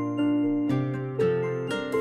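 Instrumental background music, a slow melody of held notes changing about every half second.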